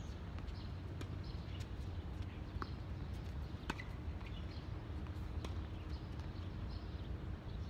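Tennis rally on a hard court: a sharp pop every second or two as the ball is struck by rackets and bounces, over a steady low rumble.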